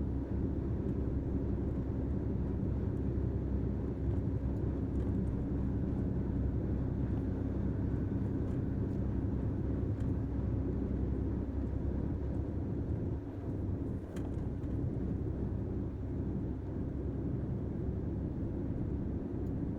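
Truck engine running steadily while driving, a continuous low drone with no break or sharp change.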